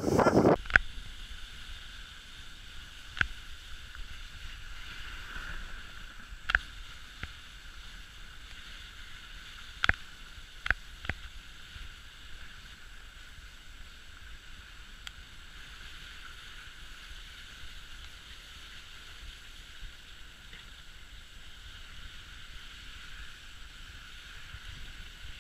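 Dog sled runners sliding over snow with a steady hiss, and a few sharp knocks from the wooden sled scattered through it.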